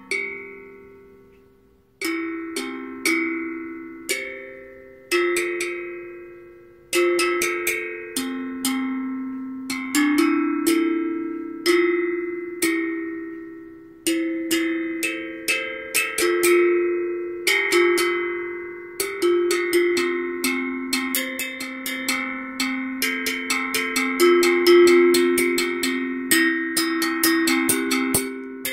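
Steel tongue drum struck with thin mallets, playing an improvised line of single ringing notes that each fade slowly. The notes come sparsely at first, then grow busier and quicker from about halfway.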